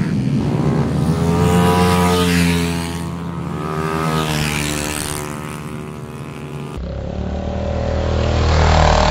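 160cc automatic racing scooters running at high revs past a corner, one after another, each engine note rising as it approaches and falling away as it goes by.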